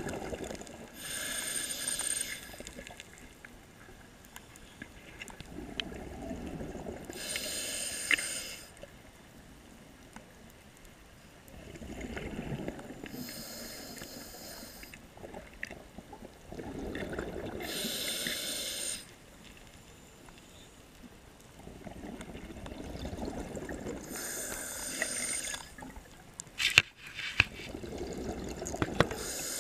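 Scuba diver breathing through a regulator: a hissing inhale about every six seconds, five in all, alternating with a longer low bubbling rumble of exhaled air. A few sharp clicks near the end.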